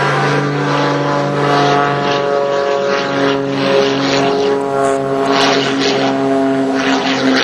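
Aerobatic propeller airplane's piston engine and propeller running hard during a display, the engine note shifting in pitch a few times as the plane manoeuvres.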